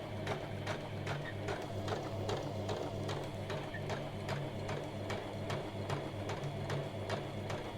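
Janome MyExcel 23X (MX3123) domestic sewing machine running a test seam: a steady motor hum with the needle mechanism ticking about four or five times a second. The fabric is now feeding through, with the presser-foot pressure dial set to 1.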